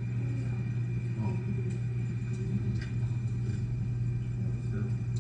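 A steady low hum that does not change, with a few faint clicks scattered over it.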